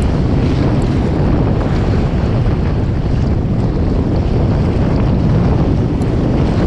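Strong wind buffeting the microphone in a steady low rumble.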